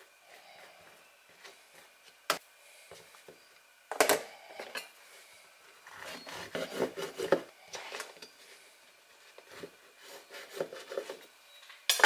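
Knife sawing through a loaf of bread on a bamboo cutting board in two spells of rasping strokes through the crust. A few sharp knocks of the blade or loaf against the board come in between, the loudest near the start and at the end.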